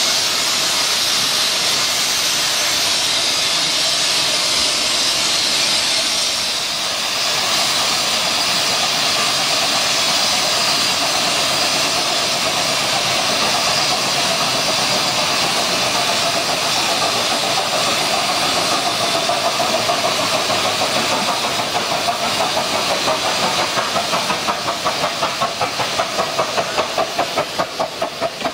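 15-inch gauge miniature steam locomotives: a steady loud hiss of steam blowing from a standing locomotive's cylinder drain cocks. From about twenty seconds in, an even chuffing of exhaust beats, about two to three a second, joins it as a locomotive moves off past the platform.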